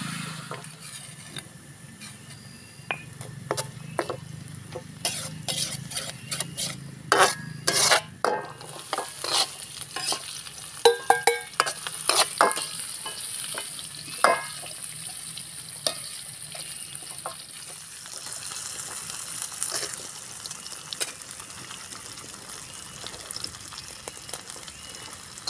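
Metal slotted spatula stirring and scraping stink beans and chillies frying in a metal wok over a fire, over a steady frying sizzle. Sharp clinks and scrapes of the spatula against the pan come thickest between about five and fifteen seconds in.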